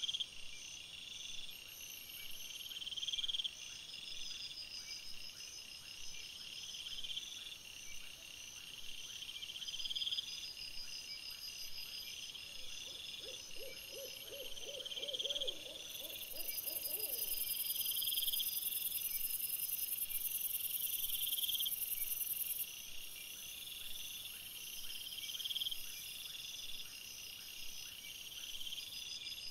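Night insects chirping: regular high trills about every two seconds over a steady, fast-pulsing high buzz. A brief lower warbling call rises and falls near the middle, and a high hiss joins for a few seconds after it.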